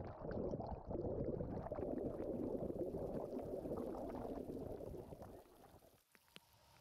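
Water bubbling and gurgling with a churn of air bubbles, heard with the microphone under the surface. It fades away about five and a half seconds in.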